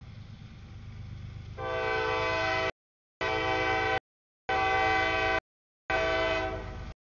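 Freight diesel locomotive's air horn sounding for the grade crossing: a rumble of the engine, then four loud horn blasts, the last one fading. The whole sound cuts out completely between blasts.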